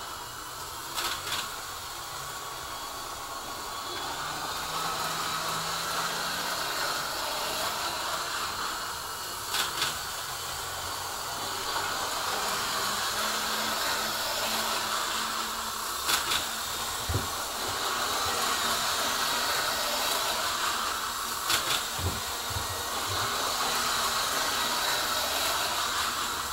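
HO-scale TGV model train running laps around the layout: a steady motor whir and wheel-on-rail rumble that grows louder and quieter as it circles, with a sharp click every five to eight seconds.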